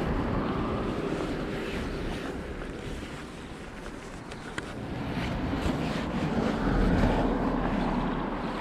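Wind buffeting the microphone over the low running noise of a Honda Super Cub underway. The sound dips about midway and swells again near the end.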